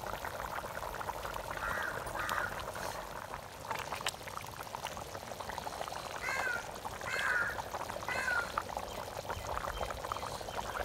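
A pot of mutton curry bubbling as it simmers, with a crow cawing several times: twice about two seconds in, then three caws a second apart in the second half.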